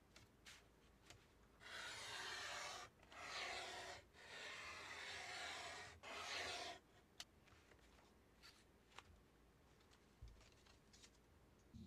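Craft knife blade drawn through a large sheet in four long scratchy strokes over about five seconds, with a few light clicks and taps of the tool before and after.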